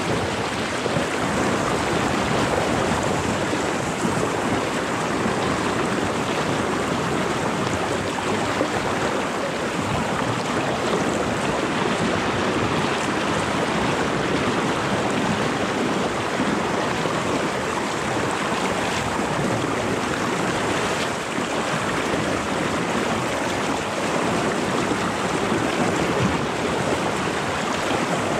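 Fast-flowing floodwater of a river rushing steadily, a dense, even wash of water noise with no breaks.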